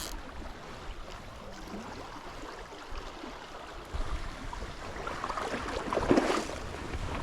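River water running steadily over a riffle, growing louder and busier in the last few seconds.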